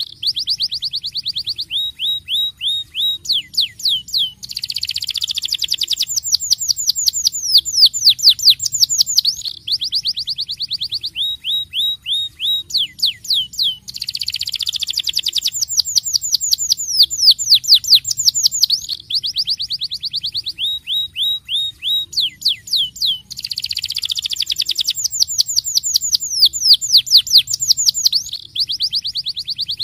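Domestic canary singing continuously in rolling trills: fast runs of descending whistled notes, several a second, in phrases that switch between higher and lower, faster and slower trills. The same sequence of phrases comes round about every nine and a half seconds.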